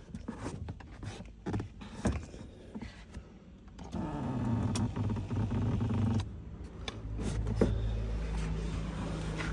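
Scattered clicks and knocks, then a steady low mechanical hum from about four seconds in that drops out briefly around six seconds and resumes at a different pitch.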